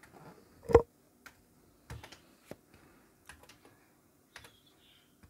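Slow, irregular keystrokes on a Commodore Plus/4's mechanical keyboard, single key clicks a fraction of a second to a second apart, with one much louder knock under a second in.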